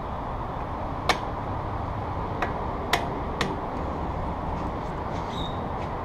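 A hammer tapping an Allen wrench, used as a punch, to drive a pad retaining pin out of a Brembo disc brake caliper. Four sharp taps: one about a second in, then three between two and three and a half seconds in, followed by a couple of fainter ones, over steady background noise.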